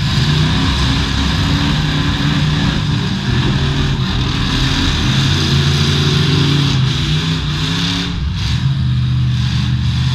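Demolition derby cars' engines running loudly, revved unevenly so the pitch rises and falls.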